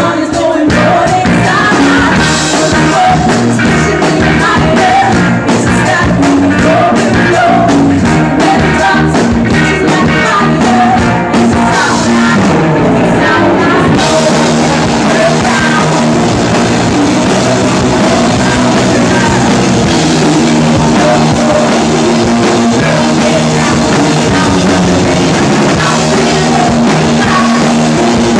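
Live band playing a rock-pop cover song, with sung vocals over a full band with drums.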